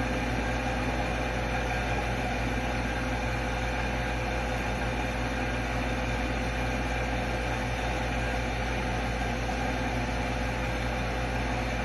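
Steady background hum and hiss, like a fan or air conditioner, with a faint steady tone and no distinct events.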